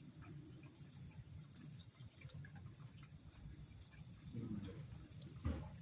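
Faint background of crickets chirping with high thin tones, over a low rumble, with a brief faint low sound a little after four seconds and again near the end.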